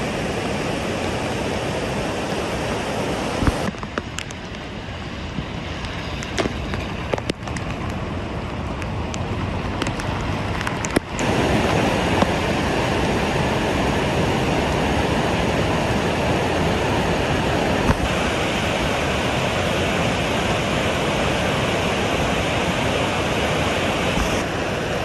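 Steady rushing noise of flowing water. It turns quieter and thinner about four seconds in, with a few sharp clicks, then fuller and louder again about eleven seconds in.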